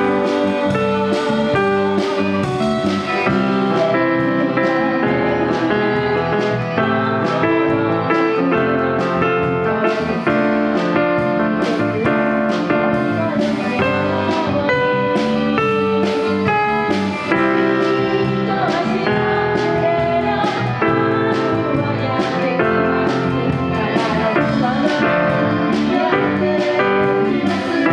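A woman singing a song into a microphone, backed by a live band of electric bass and electric guitar playing to a steady beat.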